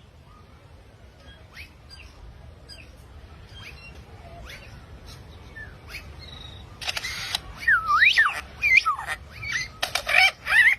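A bird calling: faint, scattered short chirps at first, then, about seven seconds in, loud whistles that slide up and down mixed with harsh squawks.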